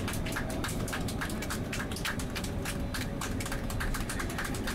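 Airbus A380 cabin noise on final approach: a steady low rumble of engines and airflow, with a rapid, irregular crackle of sharp clicks over it.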